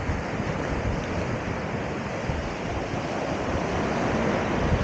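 Sea waves washing on the shore in a steady rush, with wind buffeting the microphone and rumbling low underneath.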